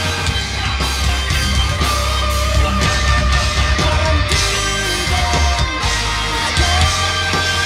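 Live heavy rock band playing loud over a concert PA: electric guitars, bass guitar and drums, with steady beats throughout.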